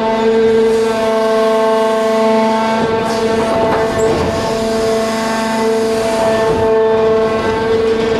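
ITC 312 H1 tunnel heading machine digging broken rock: a steady whine from its hydraulic drive, with scraping and clattering of rock under the digging arm, mostly in the middle.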